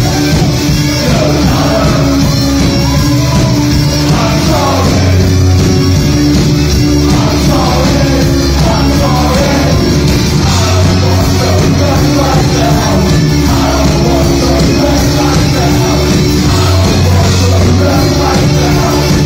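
Live rock band playing, with a male singer over electric guitar, bass and drums. Loud and continuous, heard from within the audience in a hall.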